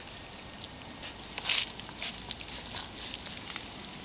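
Young boxer puppies scuffling and play-wrestling in grass: scattered small rustles and clicks, with one louder short hissy burst about a second and a half in.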